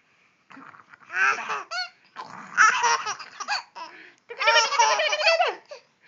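Baby giggling and laughing in three high-pitched bursts, about a second in, in the middle, and near the end.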